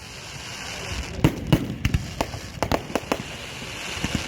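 Fireworks going off in a rapid, irregular series of sharp bangs over a steady crackling hiss, the loudest bangs coming about a second and a half in.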